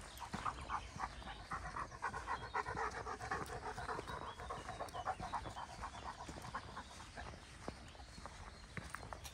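A dog panting quickly and rhythmically, fading out over the last few seconds, with footsteps crunching on a dirt path.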